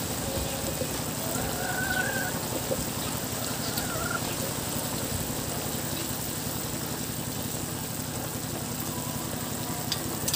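Broth simmering in a wok of bottle gourd and chicken, a steady fine bubbling patter, over a low steady hum.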